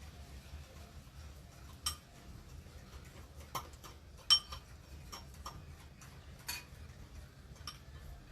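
Metal utensil clinking against a mixing bowl while pancake batter is stirred: scattered light taps with a brief ring, the loudest about four seconds in, over a faint low hum.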